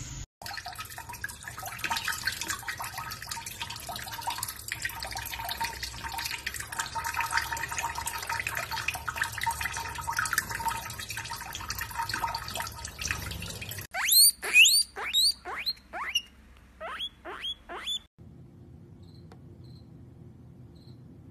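Water running steadily from a kitchen faucet over cupped hands into a sink, with small splashes. Then a run of about a dozen short, high, rising squeaks over some four seconds, cut off abruptly, followed by a faint steady hum.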